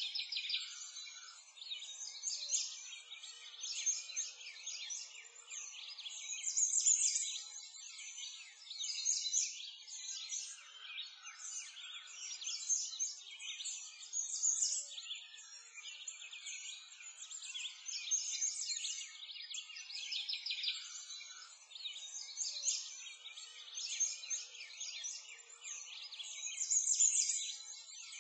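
A chorus of small songbirds chirping and trilling without pause, all high-pitched, swelling and fading in waves.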